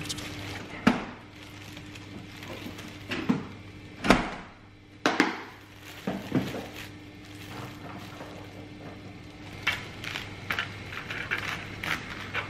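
A kitchen knife crunching through a stack of napa cabbage, perilla leaves and thin-sliced beef, with several sharp knocks of the blade and food on the cutting board and a run of small quick clicks near the end. Plastic gloves and wrapping crinkle, over a faint steady hum.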